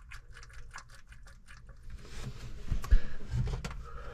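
Light metallic clicks and taps of parts being moved inside an open tractor gearbox, with a few dull knocks about three seconds in, the loudest near the end.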